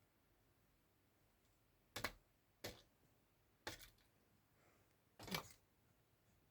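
Four short, sharp clicks against near silence, spread over a few seconds, the last one the loudest.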